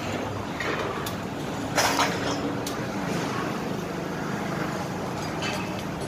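A steady engine hum with a few short sharp knocks, the loudest about two seconds in.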